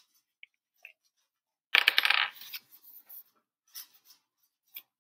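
A brief clatter of a small hard object, a quick dense rattle of clicks about two seconds in that fades over about a second, with a few faint ticks before and after.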